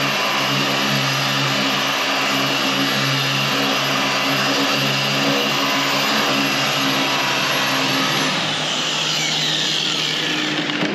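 Electric machine polisher running steadily as it buffs the truck's paint during paint correction. About eight seconds in it is switched off, and its whine falls away as the motor spins down.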